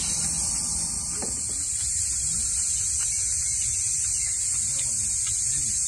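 Steady, high-pitched chorus of summer insects, with a low steady rumble underneath.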